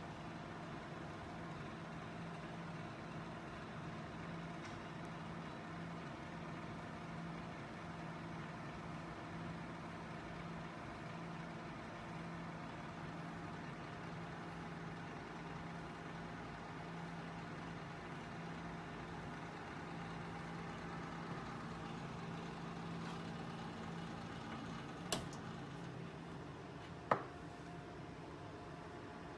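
Desktop PC's fans running with a steady hum and a few steady tones, then two sharp clicks about two seconds apart near the end as the computer is switched off, and the hum dies away.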